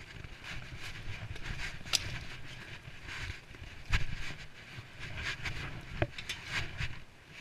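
Low rumble and rustling from movement on a building site, broken by three sharp knocks about two seconds apart.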